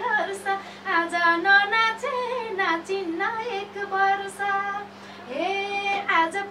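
A Nepali folk singer's unaccompanied female voice singing a slow melody with long held notes and pitch glides. A long held note near the end is preceded by a rise in pitch. A faint steady electrical hum sits underneath.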